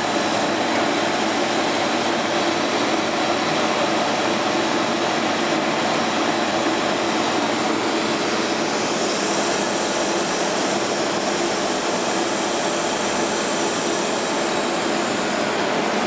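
Metre-gauge rack steam locomotive standing still and hissing steadily with escaping steam. A higher hiss joins about nine seconds in and fades near the end.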